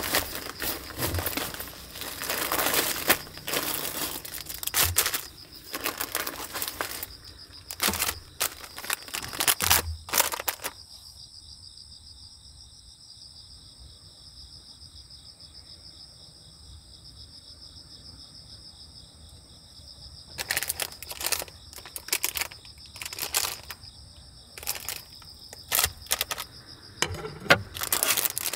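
Plastic food packets and a bag rustling and crinkling as they are handled, in bursts, with a lull of about ten seconds in the middle. Insects trill steadily and high in the background throughout.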